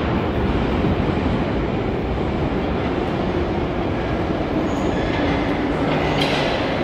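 Metro train running through an underground station: a steady, loud rumble of wheels on rail with a faint hum, and a short rattle of higher noise about six seconds in.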